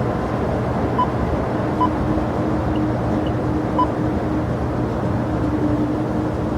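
Steady, even engine noise of jet airliners at an airport.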